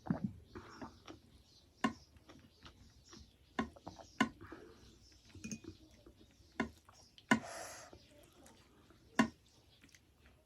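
Close-up eating sounds: a person chewing a mouthful of rice and meat gravy, with sharp wet lip smacks roughly every second or two.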